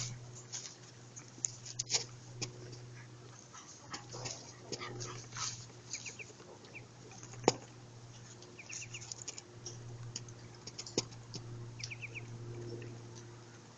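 Muscovy ducklings peeping in short groups of quick high chirps, with scattered small splashes and clicks from the ducklings in a shallow tub of water. A steady low hum runs underneath.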